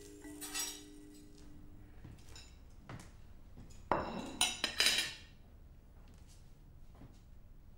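Dishes and cutlery clinking: a few light clinks, then a cluster of louder clatters about four to five seconds in.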